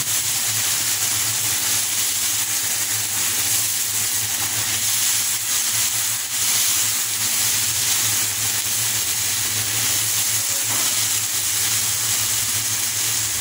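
Sauced mixed vegetables (cabbage, carrot and peas) sizzling steadily as they stir-fry in a non-stick pan, a spatula stirring them, over a steady low hum.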